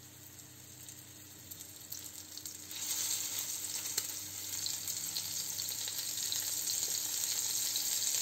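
Flour-coated burbot fish patties sizzling in vegetable oil in a non-stick frying pan. The sizzle is faint at first, then grows much louder about three seconds in as a second patty goes into the hot oil, and stays steady.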